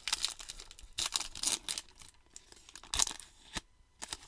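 Foil wrapper of a baseball card pack being torn open and crinkled by hand, in several short crackly bursts.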